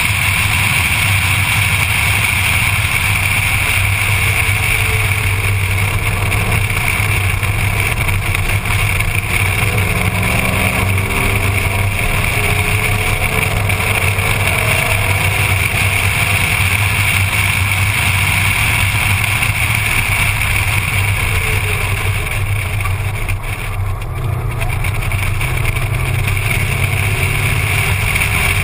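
Ford Mustang lapping a road-racing circuit, heard from a camera mounted outside on the door: steady rushing wind on the microphone, with the engine note faintly rising and falling beneath it.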